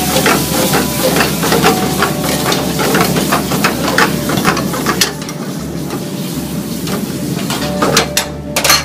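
Masala frying and sizzling in a kadai, stirred with a metal spatula that clinks against the pan again and again. The stirring eases about five seconds in, with a couple of louder knocks near the end.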